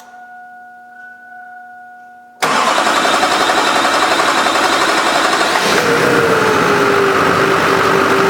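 A faint lingering chime, then about two seconds in a 2002 Duramax LB7 6.6-litre V8 diesel cuts in loud and steady, being cranked on a truck with a hard-starting fault. About halfway a whine enters, dips slightly in pitch and holds steady.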